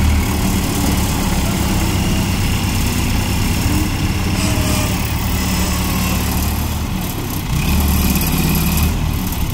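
Diesel engines of ACE 14XW hydraulic mobile cranes running steadily, growing a little louder for about a second near the end.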